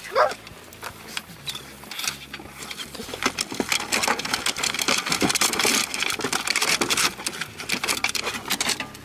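Hounds scrambling out of an aluminum diamond-plate dog box, their claws clicking and scraping on the metal in a rapid clatter that builds about three seconds in, with a short dog whine at the very start.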